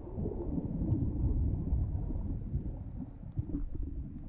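Water noise picked up by a camera held underwater while snorkeling: a muffled, steady low rumble with a few soft knocks.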